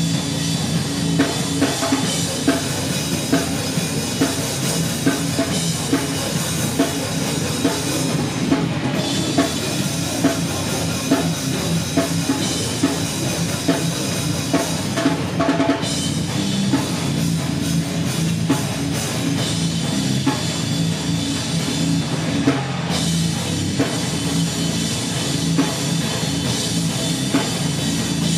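Live rock band playing loud, with pounding drums, cymbals and guitar.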